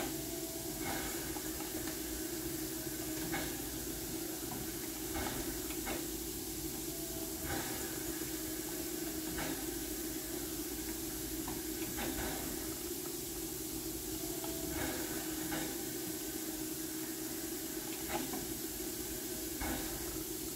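Harz narrow-gauge class 99.23–24 steam locomotive standing with steam up: a steady hiss of escaping steam over a steady low hum, with short sharp knocks every second or two.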